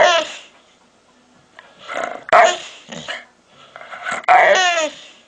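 Three short dog-like vocalizations about two seconds apart, each sliding down in pitch.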